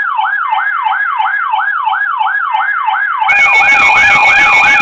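Electronic siren-style alert tone: a falling pitch sweep repeated rapidly, about four times a second, like a yelp siren. About three seconds in, steady tones and a hiss come in on top of it.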